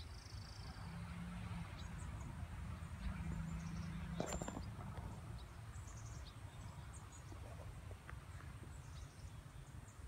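Outdoor ambience: wind rumbling on a phone microphone, with faint scattered bird chirps and a single sharp click about four seconds in.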